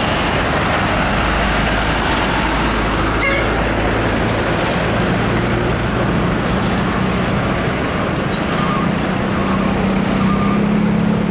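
Heavy truck's diesel engine running as it pulls an LPG tanker semi-trailer slowly past, with road traffic noise mixed in. The engine's low drone grows stronger in the last few seconds as it pulls away.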